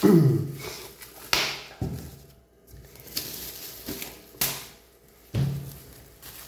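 Plastic takeaway cups and a plastic bag being handled and set down on a counter: about five separate knocks with short rustles between them.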